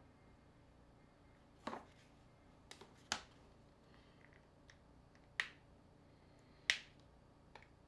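Sharp plastic clicks and snaps, about eight at irregular intervals, as the back cover of an ASUS ZenFone is pried and flexed open by hand. The loudest three come in the second half.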